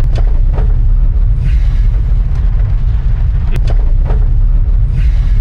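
Vehicle on the move: a steady low rumble of engine and road noise with a few faint clicks.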